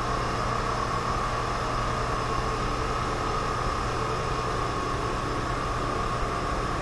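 Steady machinery hum of the kind heard in a substation equipment room: a constant mid-pitched whine over a low electrical-sounding hum, with no change in level.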